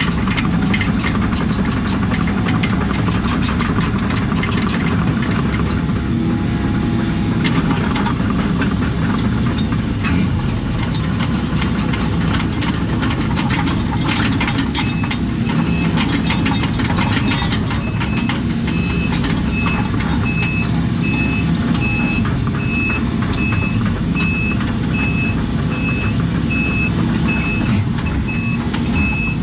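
Diesel engine of a compact construction machine running steadily under work, with scattered clanks and knocks. About halfway through, a backup alarm starts beeping at an even pace and keeps going.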